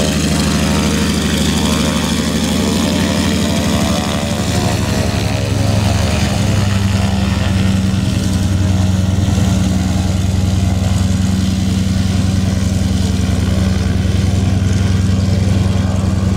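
Noorduyn Norseman's Pratt & Whitney R-1340 Wasp nine-cylinder radial engine running steadily at low power, its note shifting and growing a little louder about five seconds in.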